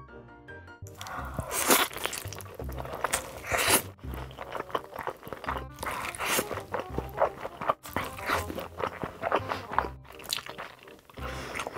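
Close-miked mukbang eating sounds: dense, irregular crunching and chewing from a person taking big bites, starting about a second in, over background music.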